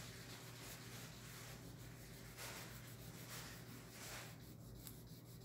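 Felt-tip marker rubbing back and forth on paper as a drawing is coloured in, in faint, irregular strokes over a low steady hum.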